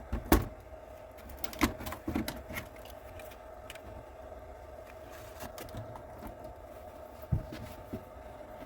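A few sharp clicks and knocks of the Acorn A3000's plastic case and keyboard being handled as it is taken apart, the loudest about a third of a second in. A faint steady hum runs underneath.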